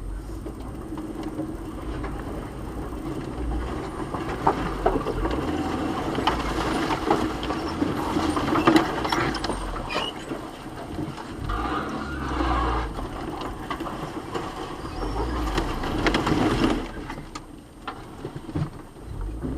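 Car driving through a severe wind storm: strong wind gusts buffet the vehicle over a steady rumble of road and engine noise, with many sharp ticks and knocks. The noise eases off noticeably about three seconds before the end.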